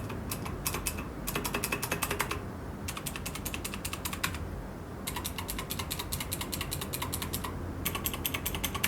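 Typing on a Keychron K2 V2 mechanical keyboard with clicky blue switches, a sound test. It is a fast, sharp clicking in runs of keystrokes with short pauses between them.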